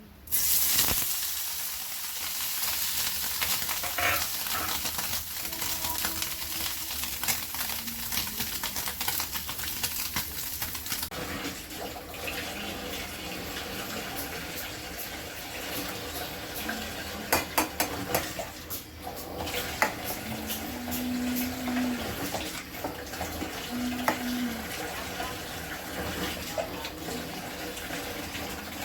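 Food frying in hot oil in a pan, a steady sizzle that starts abruptly just after the start, with frequent clicks of a spoon stirring.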